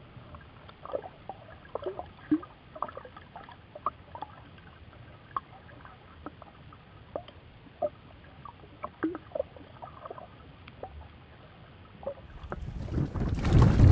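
Muffled underwater audio: a low hiss with scattered short pips and clicks at irregular intervals. About a second before the end, loud wind buffeting and boat noise swell up.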